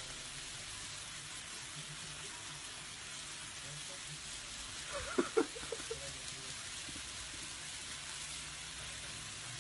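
Faint steady sizzling from a tabletop grill plate laid with meat and vegetables. About five seconds in there is a brief flurry of a few short, sharp sounds.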